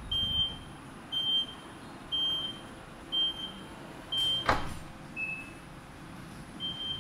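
Aftermarket power tailgate closing: its warning buzzer gives a short high beep about once a second, and a sharp knock about four and a half seconds in, as the boot lid latches shut, is followed by one shorter, lower beep.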